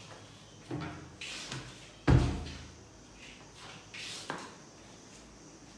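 A door being handled and pushed shut: a few knocks and bumps, with one loud thud about two seconds in.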